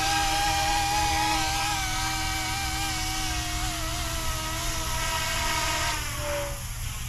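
Electric RC helicopter's motor and rotor whining steadily, then winding down in pitch and stopping about six seconds in as it settles after landing. A short single beep follows just after.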